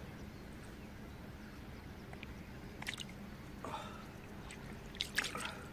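Small wet splashes and squishes as a bream is handled in shallow water at the shore for release; faint, with a few short splashes, the loudest about five seconds in.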